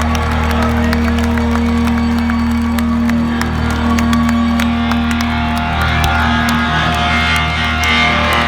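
Live rock band playing loud, steady electric guitar and bass with a held low drone, recorded from the crowd.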